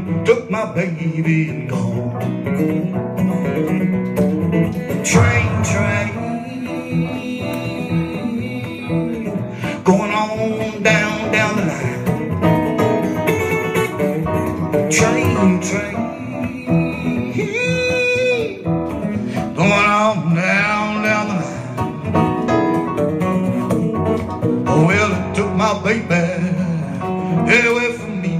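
Live acoustic guitar strumming with a man singing a blues/country-style song, accompanied by an electronic keyboard.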